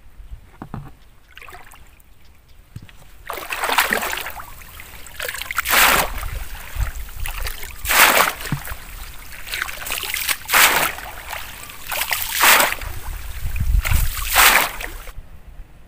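Long-handled mesh scoop net swept hard through shallow, muddy pond water: about six splashes, one every two seconds or so, starting about three seconds in.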